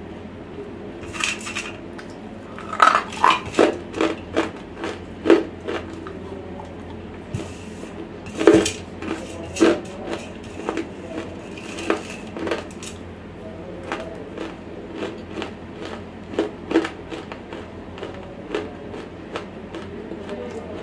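Fingers picking over and scraping a steel plate to gather the last crumbs of dry, semi-roasted clay, close to the microphone. The sound is a string of sharp, irregular clicks and scrapes with a short metallic ring, busiest in the first half.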